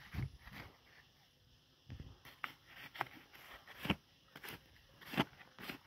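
Digging in dry, stony soil littered with twigs: irregular scrapes and knocks as the ground is broken up and loosened to uncover a metal-detector target, with a few sharper knocks in the second half.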